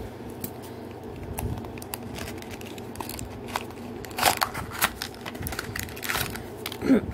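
Small cardboard blind box being handled and pried open by hand: scattered clicks, then crackling, crinkling bursts of cardboard and packaging, loudest a little past halfway.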